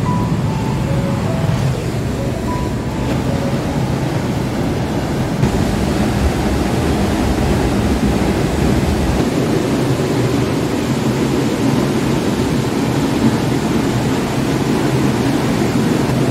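Tall waterfall plunging into its pool, a steady loud rush of falling water heard from the rock overhang behind the falls.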